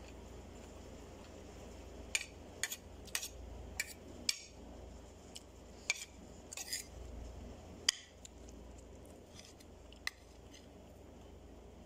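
Metal spoon clinking and scraping against a ceramic plate while eating rice: a string of short, sharp clinks, about nine in all, spread unevenly over several seconds.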